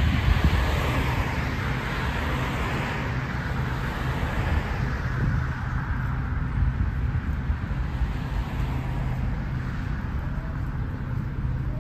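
Road traffic passing close by: a vehicle goes past in the first few seconds and its noise fades away, over a steady low rumble of traffic.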